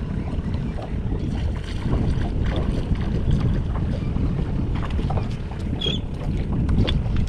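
Wind buffeting the microphone and small waves slapping against a small boat's hull, with scattered light clicks and splashes as a hooked fish is worked to the boat. A brief high chirp sounds about six seconds in.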